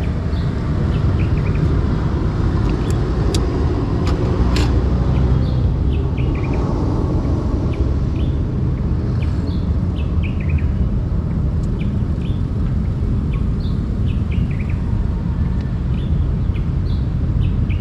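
Small birds chirping in short, repeated calls throughout, over a steady low outdoor rumble. A few sharp clicks come about three and four and a half seconds in.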